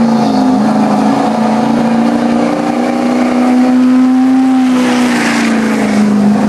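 A 2004 GMC pickup's Duramax V8 turbo-diesel wound up to high revs under load on a truck pull. The engine note holds steady, rises a little midway and eases slightly near the end.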